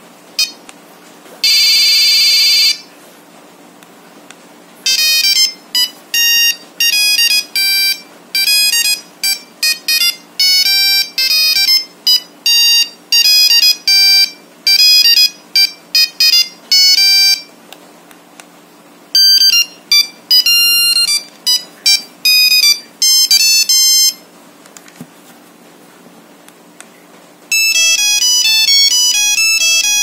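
Nokia 3315 monophonic ringtones previewing one after another from the phone's speaker as the ringtone list is scrolled. First a short steady beep-tone, then a quick single-note melody, a second melody a few seconds later, and a new one starting near the end.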